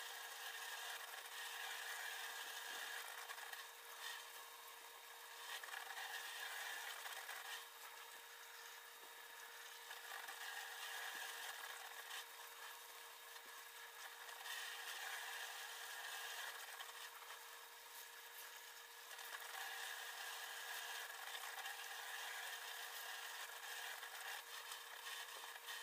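Faint rustling, rubbing and small snaps of leafy plant stems being peeled and stripped by hand, in uneven stretches over a steady low hum.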